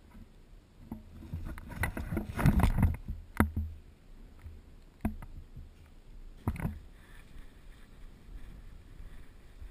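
Irregular rustling and knocking from a player moving about, picked up by a helmet-mounted camera, with a thick patch of it about two seconds in and a few sharp single clicks after.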